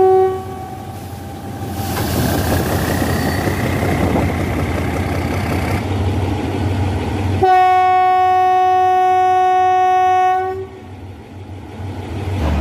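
A diesel locomotive's horn sounds one long steady blast of about three seconds, a single note, a little past the middle. Before it, locomotive engine noise runs with a slowly rising whine.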